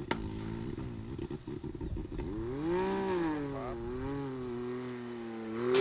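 Can-Am Maverick X3's turbocharged three-cylinder engine revving while held on launch control before a launch. The revs rise about two and a half seconds in, fall back and hold steady, and a much louder surge begins at the very end.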